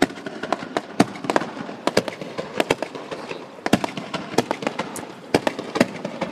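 Aerial fireworks going off: a rapid, irregular run of sharp bangs and pops, several a second, from shells bursting in the sky.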